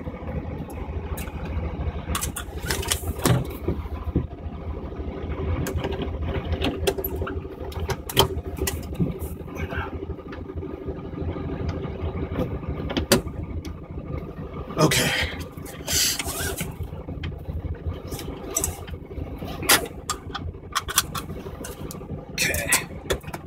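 A 1973 Volkswagen Beetle's air-cooled flat-four engine running steadily while driving, heard from inside the cabin, with scattered clicks and knocks over it.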